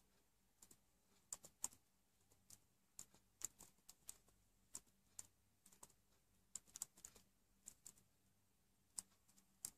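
Faint keystrokes on a computer keyboard: irregular clicks, about two or three a second, as an email address is typed key by key.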